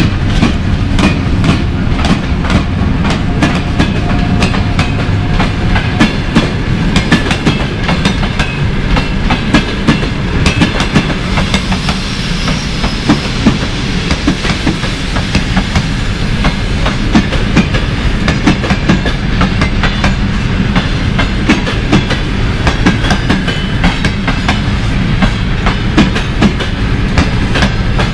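Passenger coaches of a departing train, hauled by an EP1M electric locomotive, rolling past with a continuous rumble. Their wheels clack over the rail joints in a dense, uneven run of knocks.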